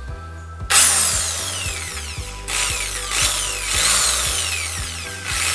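Bosch GSB 13 RE 650 W corded impact drill, set to hammer mode with no bit fitted, running unloaded. It starts suddenly about a second in, then slows with a falling whine and speeds up again several times as the trigger is eased and squeezed.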